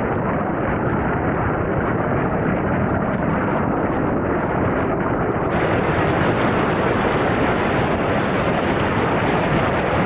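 Fast-flowing Kicking Horse River rushing steadily: a loud, even wash of water noise.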